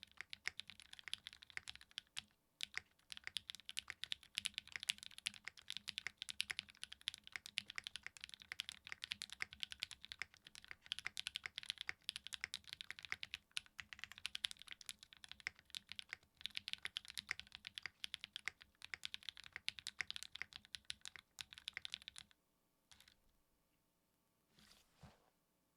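Steady typing on a Graystudio Think6.5 mechanical keyboard with an FR4 plate, linear switches made from Cherry MX Black housings and NovelKeys Kailh Cream stems, and GMK keycaps: a dense run of keystroke clacks that stops a few seconds before the end, followed by a couple of faint taps.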